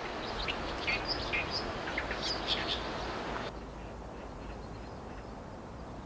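Small birds chirping in short, scattered calls over a steady outdoor hiss. The chirps thin out about halfway through, and the hiss carries on a little quieter.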